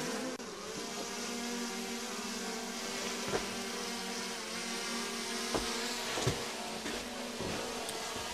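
DJI Mini 3 Pro drone's propellers whining steadily close by, several steady tones at once, with a few short low thumps in the second half.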